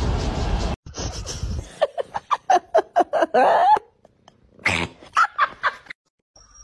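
A cat making a quick string of short calls, about ten in two seconds, then a few more after a brief pause.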